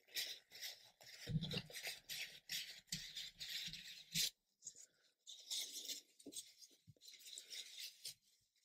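Paper tissue rubbing and scraping over glued fibreboard model parts as excess glue is wiped away, in short, faint strokes. Two soft knocks come from the parts being handled, about a second and a half in and again about four seconds in.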